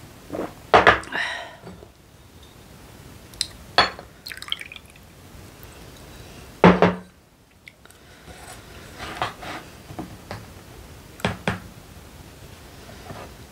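Tableware being handled: a glass mug knocked down on the table and soju poured from a green glass bottle into it. Several separate clinks and knocks, the loudest about a second in and again about seven seconds in.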